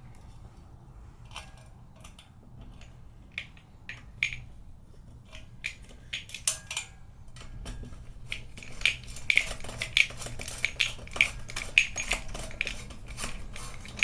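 Hand tools and small metal fender hardware clinking and clicking as bolts are fitted and tightened on the front fender mount of a fat trike's fork. Scattered light clicks at first, then a busier run of quick metallic clinks in the second half.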